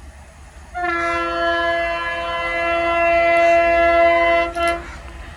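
Horn of a WDP-4D diesel locomotive sounding one long, steady blast of about four seconds, with a brief break just before it cuts off, over a low rumble.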